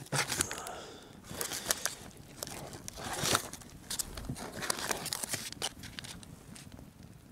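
Foil ration-meal pouches and the cardboard box rustling and crinkling as the pouches are handled and lifted out, with irregular small clicks and knocks.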